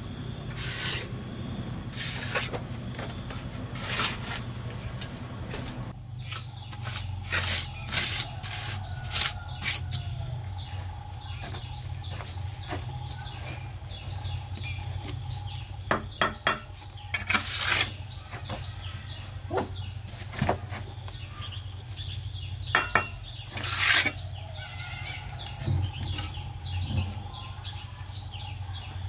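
Steel trowel scraping and spreading cement mortar, and hollow concrete blocks being set and tapped into place: a series of short scrapes and knocks, over a steady low hum and a thin high tone.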